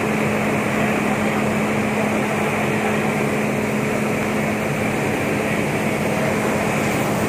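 Nilgiri Mountain Railway X-class steam locomotive standing at the platform with steam up: a loud, steady hiss with a steady low hum.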